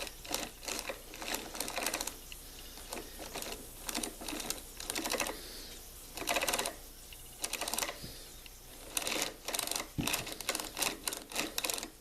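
Irregular clicking and clattering of a chainsaw's hard plastic and metal parts being handled, in short uneven bursts, with a sharper knock about ten seconds in.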